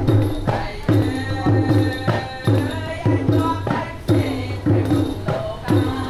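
Children singing a traditional Khmer song together, over a drum beating a steady pulse about every 0.8 seconds and jingling hand percussion.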